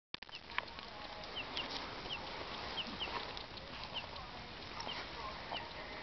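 Wood fire crackling with sharp pops, the loudest about half a second in. A bird repeats a short, high, falling chirp about once a second.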